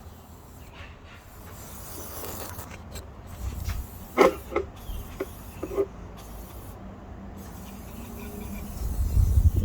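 Rubbing and scraping of hand work on engine parts being cleaned with brake fluid, with a few light clicks about four to six seconds in. A louder low rumble comes in near the end.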